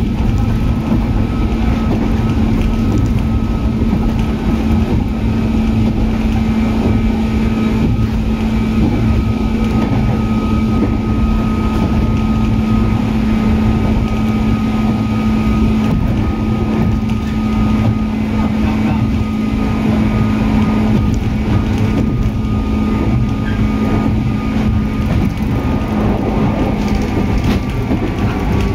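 103 series electric train running at a steady speed: the MT55A traction motors and gears give a steady whine over rumbling wheel and rail noise. Near the end the higher tone begins to fall slightly as the train eases off.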